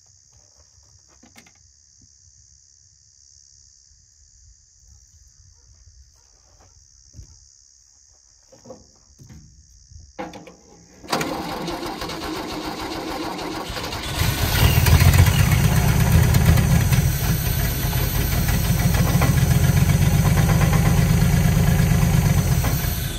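The long-sitting engine of a 1976 Holden HX ute cranks over about eleven seconds in, catches about three seconds later and runs for around nine seconds on the fuel in the carburettor bowls, then cuts out suddenly. Through the running comes a hollow banging: the exhaust knocking against the crossmember.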